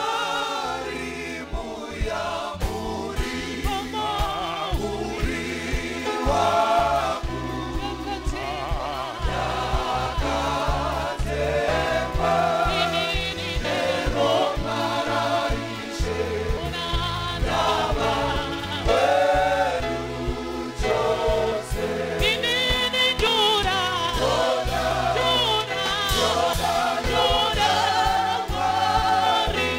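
Gospel choir singing in Shona, several voices together with vibrato, over live band accompaniment with a steady low bass line.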